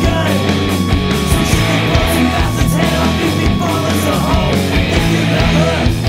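Loud punk rock band recording playing at a steady, dense level, with drums hitting regularly.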